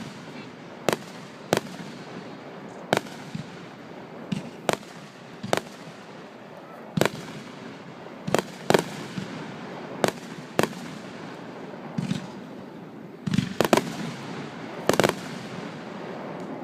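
Fireworks bursting overhead, a sharp bang every second or so at uneven spacing, with a quick cluster of several bangs near the end.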